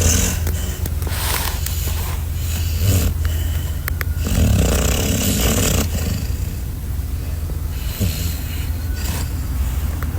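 Pit bull puppy snoring in its sleep, a snore every couple of seconds, over a steady low hum.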